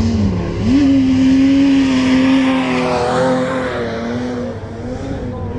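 Car engine running at high revs. It dips, then jumps up sharply about half a second in, holds steady, and eases off near the end.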